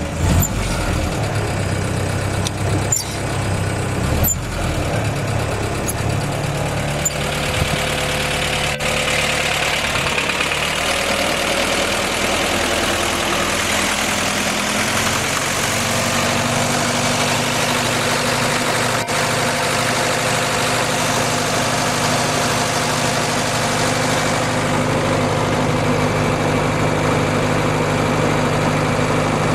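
Willys CJ6 engine running just after start-up and driving the PTO winch in gear, with a few clunks in the first seconds. From about 8 seconds in a steady, busier mechanical whine joins as the winch reels in cable under load, lifting a heavy steel wall section.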